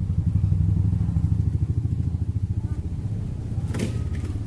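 A small engine running with a low, fast-pulsing rumble, loudest in the first couple of seconds and easing off after. A single sharp click comes near the end.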